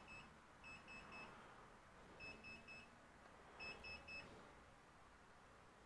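Faint, high-pitched electronic beeps in quick triplets, each group of three short beeps repeating about every 1.5 seconds, four groups in all.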